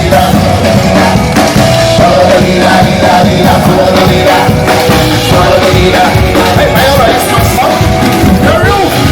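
Loud, upbeat dance music with singing, played for a street dance party.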